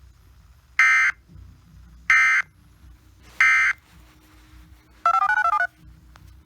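Emergency Alert System end-of-message data tones: three identical short buzzy bursts, about a third of a second each and evenly spaced, closing the broadcast alert. About five seconds in comes a half-second run of quickly stepping electronic tones.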